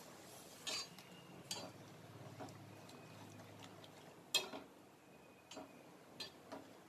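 Steel perforated ladle clinking and scraping against a stainless steel pot while a thin tamarind gravy is stirred. It comes as scattered knocks, about seven in all, the loudest about four and a half seconds in.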